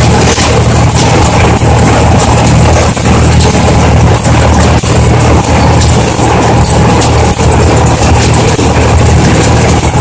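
Loud, steady run of a tractor engine pulling a Riviere Casalis KR40 small square baler through a hay windrow, with the baler's mechanism clattering in a regular beat as it bales.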